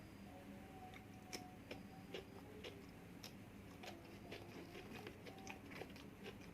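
Faint eating sounds: scattered soft clicks and snaps of a person biting and chewing food, over a low steady room hum.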